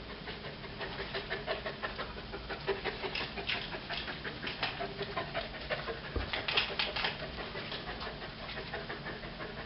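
A dog panting in quick, irregular short breaths.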